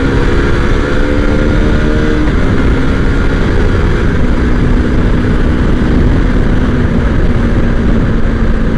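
Motorcycle engine running while riding, picked up by a GoPro's external mic with heavy wind rumble over it. The engine note drops about two seconds in, then holds steady.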